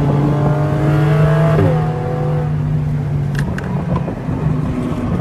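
Porsche engine heard from inside the cabin, revving up steadily under hard acceleration. About a second and a half in, its pitch drops sharply and it runs on lower and quieter. A couple of sharp clicks come past the middle.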